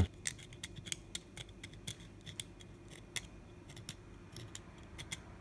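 A knife blade scratching the surface of an aluminium drink can through a coat of petroleum jelly: a faint, irregular run of small scratchy clicks. The scraping cuts through the aluminium's oxide layer while the jelly shields the bared metal from the air, so that solder will take.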